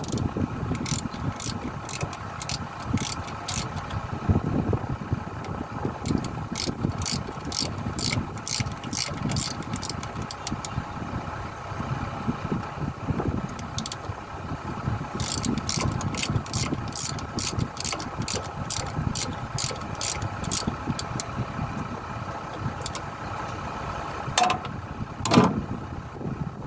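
Excavator's diesel engine idling steadily, with runs of short, sharp metallic clicks on and off over it. A louder event with a brief falling tone comes near the end.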